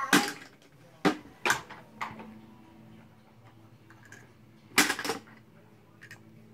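Metal baby-food jar lids dropped into a cardboard oatmeal canister, clinking against each other: a few sharp clinks in the first two seconds, then a louder clatter about five seconds in.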